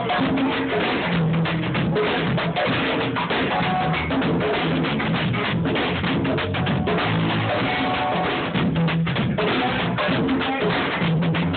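Hip hop beat playing: a drum-kit groove of kick, snare and rimshot over a repeating bass line, with a muffled, dull top end.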